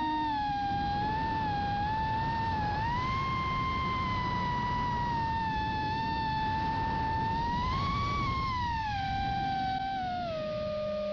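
FPV quadcopter's electric motors and propellers whining in flight, the pitch gliding up and down with the throttle, over a steady rush of wind and propeller noise.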